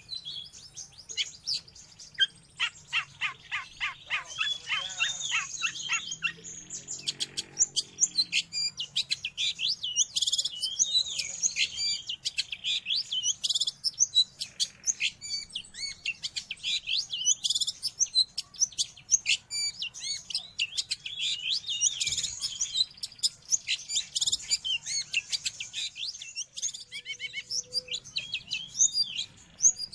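Long-tailed shrike (cendet) singing a fast run of short, high notes with few pauses.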